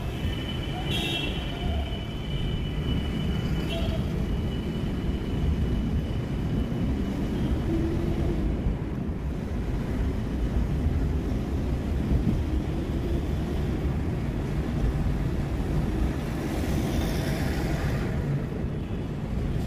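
Steady low rumble of a car's engine and tyres on the road, heard from inside the moving car in city traffic. A thin high steady tone sounds over it for the first few seconds.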